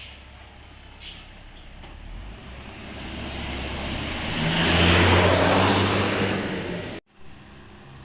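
A heavy vehicle drives past close by, its engine and road noise swelling over a few seconds to a peak about five seconds in. The sound then cuts off abruptly.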